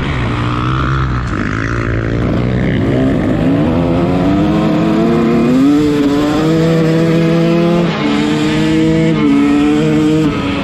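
Yamaha 250 dirt bike engine pulling hard under throttle, its pitch climbing for a few seconds and then holding high, with short dips in pitch near the end.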